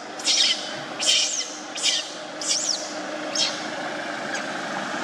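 Infant macaque crying: short, high-pitched cries repeated about every half second to a second, several sliding down in pitch.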